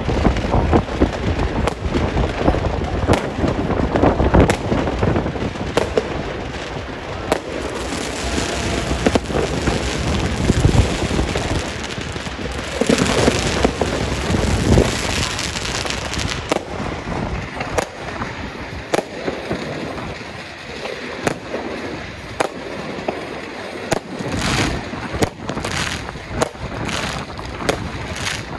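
Fireworks display: a dense run of bangs and crackles that thins after about 17 seconds to separate sharp cracks about a second apart.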